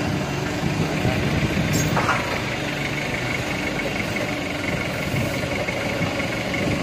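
LiuGong forklift's engine running steadily at low speed while the truck is manoeuvred, with one sharp knock about two seconds in and a faint steady high whine joining about a second later.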